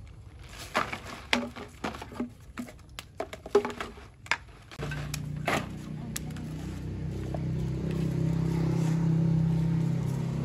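Clicks and knocks of plastic containers and scavenged scraps being handled and sorted on concrete. About five seconds in, background music with low held notes comes in and grows louder.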